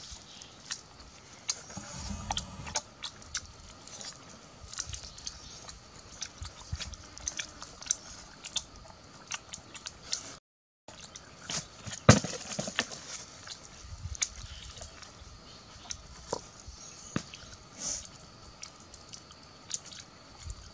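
Close eating sounds: scattered small clicks, smacks and knocks of chewing and handling a roasted duck on a bamboo skewer, with a few duller thuds. The sound cuts out completely for a moment a little past halfway.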